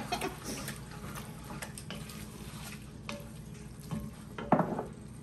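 Wooden spoon stirring a thick, chunky mixture of browned ground beef, beans and stewed tomatoes in an enamelled pot, with soft wet scrapes and small taps against the pot and one louder knock about four and a half seconds in.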